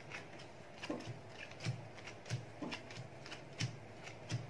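Playing cards being dealt one at a time from the deck onto three piles on a paper sheet over a table: a short click and soft slap each time a card is slid off and lands, about one every three quarters of a second.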